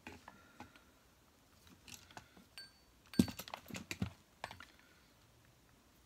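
Light clicks, taps and knocks of small metal parts and tools being handled while wiring a vacuum cleaner motor, loudest in a quick flurry from about three to four and a half seconds in, a few with a short metallic ring.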